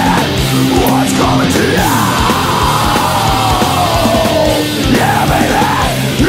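Heavy metal song with fast, steady drumming and a long held note that rises and then falls away between about two and five seconds in.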